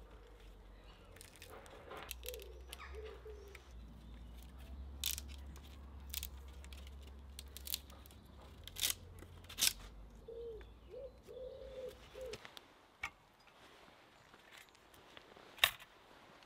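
Scattered sharp clicks and knocks from a knife and hand tools working wood, about seven in all, with a pigeon cooing twice in the background.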